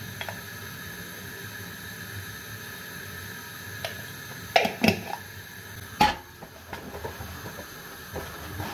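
Glass jar with a screw-on metal lid being handled on a counter: a few faint clicks, then a cluster of sharp clinks and knocks about halfway through, followed by lighter taps, over steady faint room noise.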